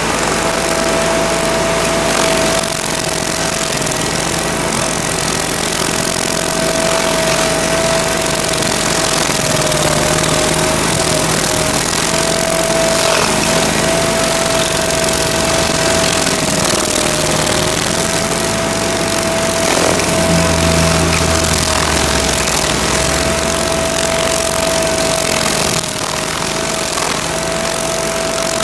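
Toro STX-38 stump grinder running under load, its cutter wheel grinding into a tree stump. Loud, continuous engine and cutting noise with a steady whine throughout.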